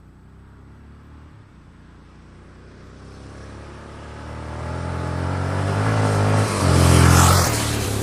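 A motor vehicle engine growing steadily louder as it approaches, loudest about seven seconds in, then starting to fade as it passes.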